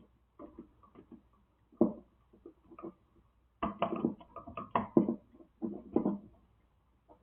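Irregular small clicks and knocks of hands working stranded wires and a wall light switch with its screw terminals. There is a sharper knock about two seconds in and a denser run of handling clatter from about three and a half to six seconds.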